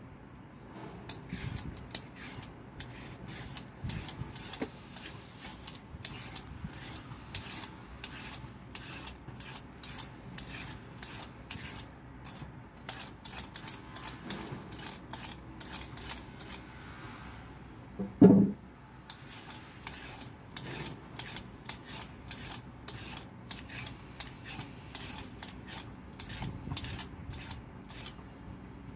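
A raw sweet potato being peeled by hand: the blade scrapes off strips of skin in quick repeated strokes, about two a second. Partway through there is one brief, louder low knock.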